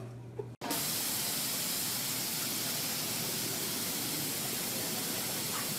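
Steady hiss of a fine water spray, starting abruptly about half a second in.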